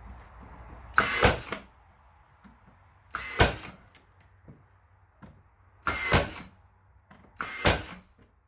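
A 15-gauge finish nailer driving 2.5-inch nails into new window framing: four sharp shots, about two to three seconds apart.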